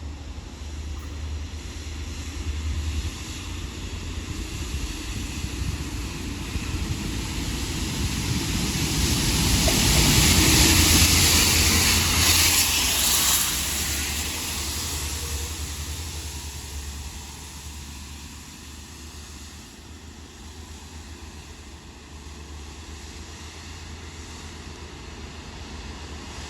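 A pair of Network Rail Multi-Purpose Vehicles working as a railhead treatment train passing, with a loud hiss of its rail-cleaning water jets over a low engine rumble. The sound builds to a peak about ten to thirteen seconds in, then fades. It is the sign of the rails being blasted clean and treated for grip.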